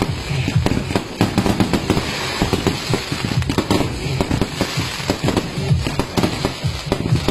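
A barrage of fireworks exploding: rapid, overlapping bangs and crackles with a low rumbling boom, packed closely without pause.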